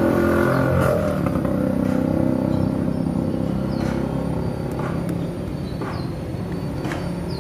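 A car engine idling steadily with a low, even hum that eases slightly over the seconds, with a few faint clicks on top.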